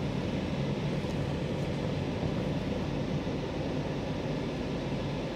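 Steady, even cabin noise inside a 2021 Chevrolet Suburban Z71 with its 5.3-litre V8 running, a low hum with a fainter hiss above it.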